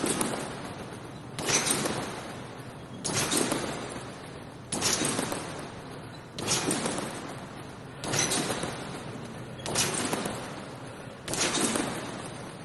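Trampoline being bounced on at a steady pace: eight bounces, about one every second and a half, each a sharp hit on the mat and springs that fades over about a second.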